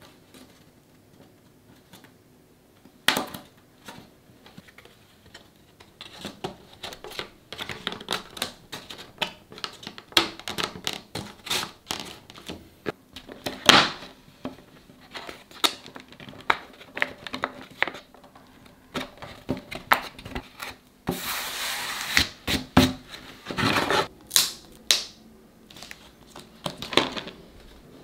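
Hands working small parts into a wooden lattice frame on a wooden tabletop: a dense, uneven run of light clicks and taps on wood that starts a few seconds in, with a couple of seconds of rasping rubbing a little past the middle.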